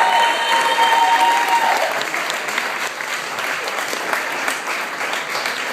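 Audience applauding, the clapping slowly dying down. A held high tone sounds over the clapping for the first two seconds or so.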